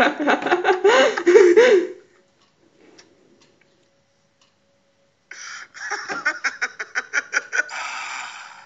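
A man laughing hard, a loud burst of laughter that stops about two seconds in. After a near-quiet gap, a fast run of short breathy pulses starts about five seconds in, roughly five a second.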